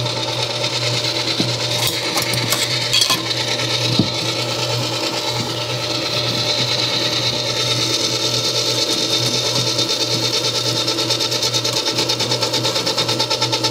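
Hobart N50 stand mixer running at low speed, its beater blade working through a heavy batch of peanut butter cookie dough as flour is mixed in. A steady motor hum with a regular pulsing several times a second, and a few sharp clicks and knocks about two to four seconds in.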